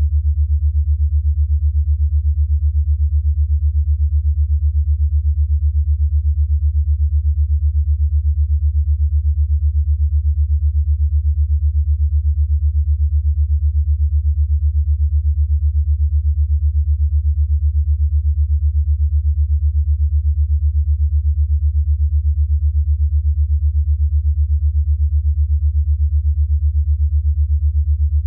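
Deep, steady electronic low tone with nothing above it, pulsing rapidly and evenly: an 8 Hz alpha brainwave-entrainment tone.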